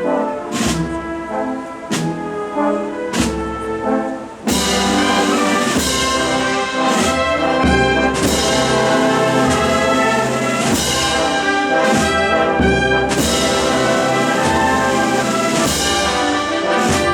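Processional wind band (banda de música) playing a Holy Week march: brass and woodwinds over regular drum strokes. The full band comes in much louder about four and a half seconds in.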